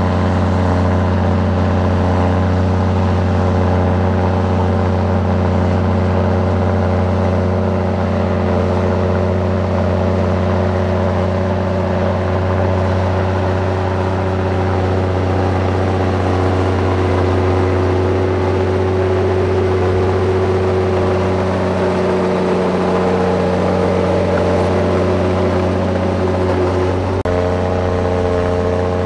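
Heavy diesel engine of earthmoving machinery running steadily under load, with a deep steady drone and an abrupt shift in pitch near the end.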